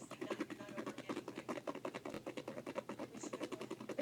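A wet, creamy shampoo-and-baking-soda slime mixture being stirred in a container, with quick, even scraping strokes, several a second.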